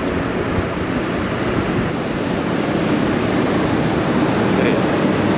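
Yamaha XMAX scooter's single-cylinder engine running at speed, under a steady rush of wind over the microphone.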